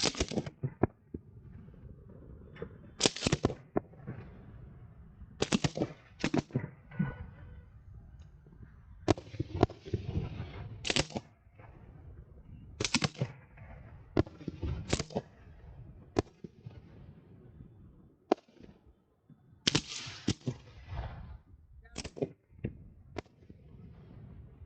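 Fireworks going off in a string of sharp bangs, one every second or two at uneven gaps, several trailing off with a ringing tail.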